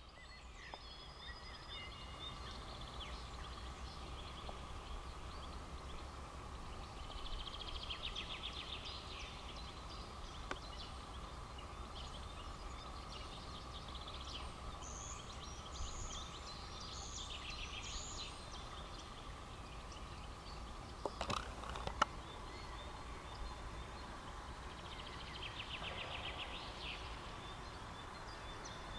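Faint songbirds singing, with rapid trills about eight, seventeen and twenty-six seconds in, over a low steady rumble and a faint steady hum. Two sharp clicks come a little after twenty seconds.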